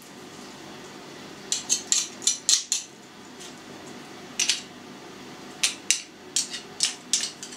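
Metal utensil scraping and clicking against a metal garlic press as crushed garlic is pressed out and scraped off: a quick run of short, sharp metallic clicks about a second and a half in, a single one past the middle, then another run near the end.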